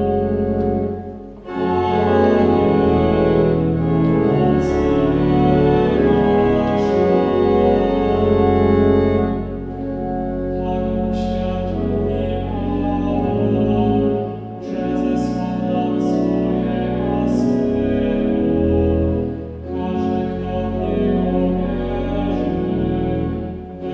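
Cathedral pipe organ playing a hymn in full, sustained chords, phrase by phrase, with a brief dip in sound between phrases about a second and a half in and twice more later.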